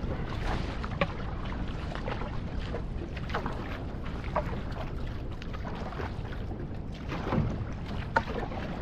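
Water splashing and washing around an outrigger canoe (va'a) being paddled, with short splashes at irregular intervals of roughly a second, over a steady low rumble.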